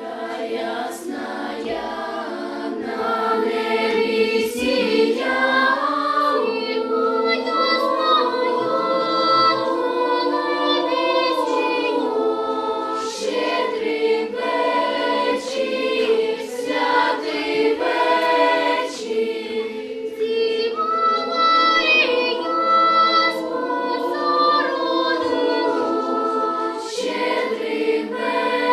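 A choir singing, with long held notes that move slowly from one to the next.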